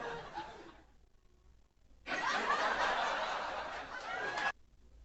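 A group of people laughing, several voices over one another. The laughter dies away in the first second, then a louder burst starts about two seconds in and cuts off suddenly after some two and a half seconds.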